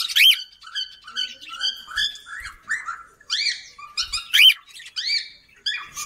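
Cockatiels chirping and calling: a string of quick chirps and warbles, with louder rising-and-falling calls near the start and about four and a half seconds in.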